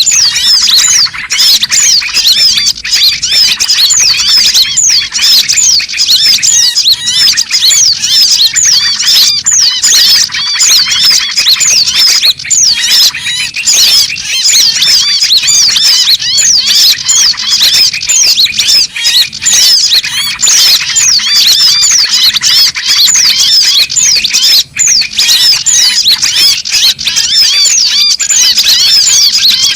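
Dense, loud chorus of many small birds calling and chattering over one another in rapid short high notes, without pause. It is a bird-trapping lure recording (suara pikat) of mixed small songbirds.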